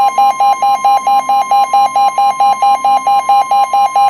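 Weather radio alert: the steady 1050 Hz warning alarm tone that comes before a new severe thunderstorm warning, with a buzzy alert beep pulsing over it about six times a second.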